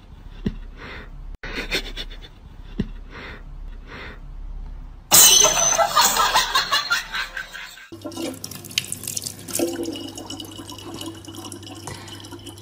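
A loud, harsh noise starts suddenly about five seconds in and lasts about three seconds. Then a kitchen tap runs a thin stream of water into a plastic bottle, with a steady hum behind it.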